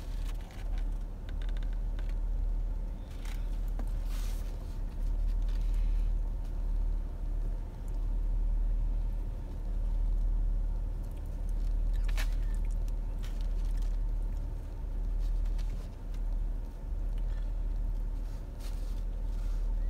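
Low, steady rumble of a car idling, heard inside the cabin, with a few brief clicks and rustles of handling.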